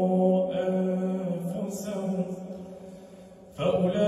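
A man's voice chanting Quran recitation in melodic tajwid through a microphone, drawing out one long held note that slowly fades. A new phrase begins about three and a half seconds in.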